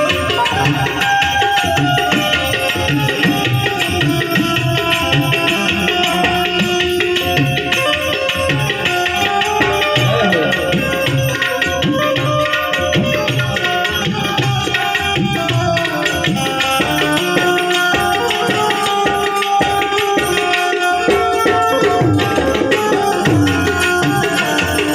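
Instrumental interlude of Gujarati santvani devotional music: tabla keeps a steady beat under sustained harmonium melody lines, with a few sliding notes about ten seconds in and again near the end.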